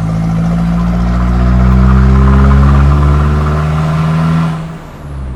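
Mazda BT-50 ute engine, fitted with a stage 1 high-flow turbo, pulling under acceleration with its note climbing slowly; about four and a half seconds in the note falls and quietens.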